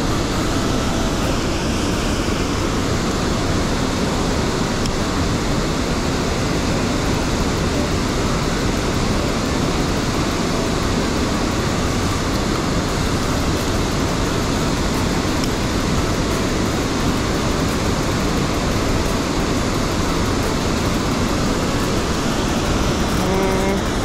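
Mountain stream water rushing, a steady even roar.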